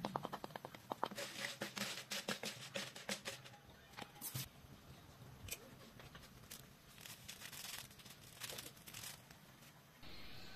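Faint crinkling, tearing and clicking of a plastic packet and small containers being handled while salt and seasoning powder are added to a pot, dense for the first few seconds and then in scattered taps.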